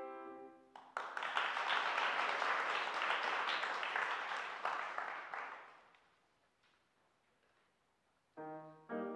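A grand piano chord rings and dies away, then an audience applauds for about five seconds, the clapping fading out. After a short quiet, the piano starts playing again near the end.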